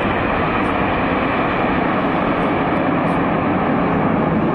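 Jet engines of a formation of display jets flying past, a steady loud rushing noise that stays even throughout.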